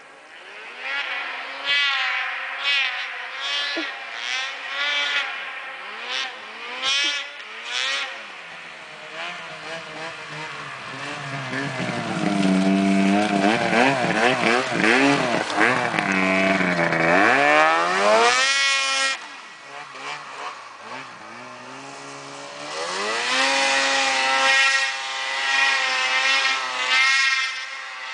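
Ski-Doo MXZ 600 snowmobile engine through an aftermarket MBRP exhaust can, revved again and again: quick blips at first, then a longer, louder run up to high revs with the pitch rising and wavering before it drops, then more revs near the end.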